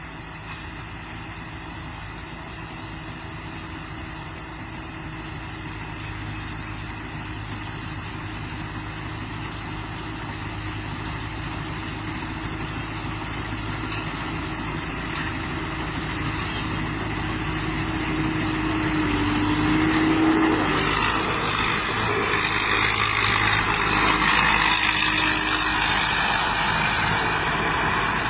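Combine harvester engine running steadily and growing gradually louder as the machine comes closer, with a louder, brighter machinery noise joining about two-thirds of the way in.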